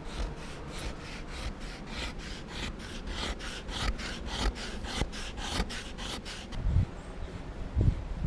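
Wooden fire plow: a hardwood stick rubbed hard back and forth along a groove in a dry log, rasping in a quick steady rhythm of about three to four strokes a second, working up friction heat to make an ember. The strokes stop about six and a half seconds in, and a few low thumps follow near the end.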